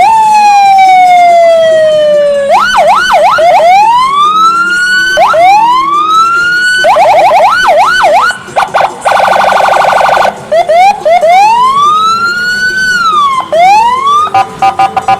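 Loud electronic vehicle siren cycling through patterns: a long falling tone, quick yelps, repeated rising sweeps, a fast pulsing tone, and a long rise and fall.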